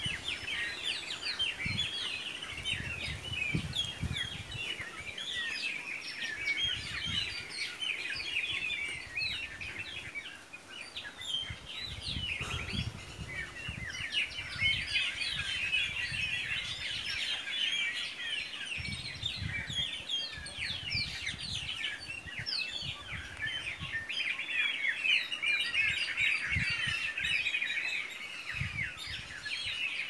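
Many small birds chirping and singing at once, a dense chorus of short, overlapping high calls, with intermittent low rumbles on the microphone.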